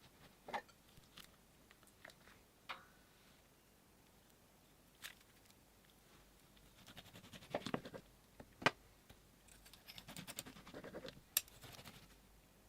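Slime being handled close to the microphone: scattered sticky clicks and pops, with two stretches of close crackling, one in the middle and one near the end, each punctuated by a sharp click.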